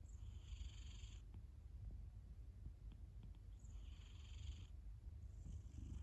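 A sleeping British Shorthair cat purring with a steady low rumble, joined by a soft breathy snore three times, about every three and a half seconds. The sound is faint.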